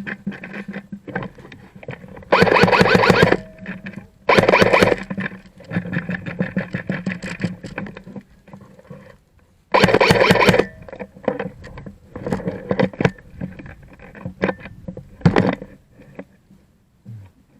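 Airsoft guns firing full-auto: three bursts of about a second each and a short burst near the end, with scattered single shots and clicks in between.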